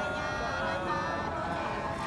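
Unaccompanied Nùng sli folk singing: a voice holding long, drawn-out notes that waver slightly in pitch, with no instrument.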